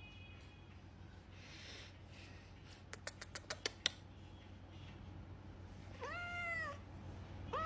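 A hairless Sphynx kitten gives one meow near the end, its pitch rising and then falling. In the middle comes a quick run of about seven small clicks.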